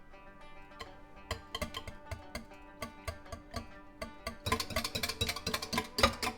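Background music: plucked-string notes over light percussion, with a rapid flurry of sharp taps and clicks from about four and a half seconds in until just before the end.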